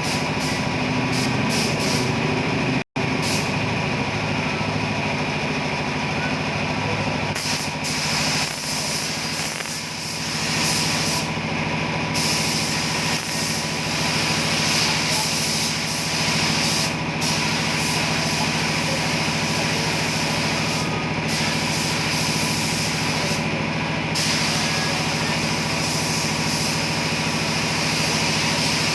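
A motor running steadily, with a high hiss over it that cuts out briefly several times.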